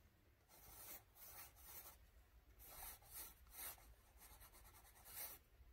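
Faint pencil strokes on sketchbook paper, a string of short, irregular strokes as hair is sketched in.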